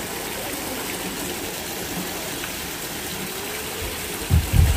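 Steady rush of water falling and splashing at a pool's water-play feature. A few low thuds come near the end.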